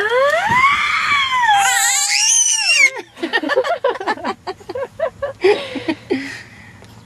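Infant's long, high-pitched scream that rises and then falls over about three seconds, followed by a run of short, choppy vocal sounds.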